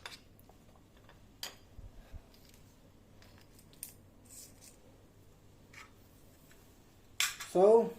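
A few faint, scattered metallic clicks and light rattles from handling a motorcycle disc brake lock and its keys.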